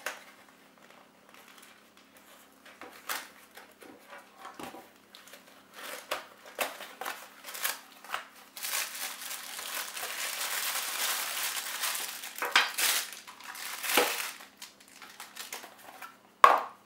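Small cardboard box handled and opened with scattered light taps. From about eight seconds in, a plastic bag crinkles and rustles steadily for about four seconds, then comes a few sharp knocks.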